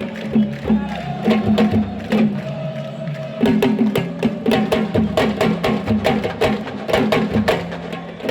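Sabar drumming: a fast, dense rhythm of sharp slaps and strikes, growing busier about three and a half seconds in.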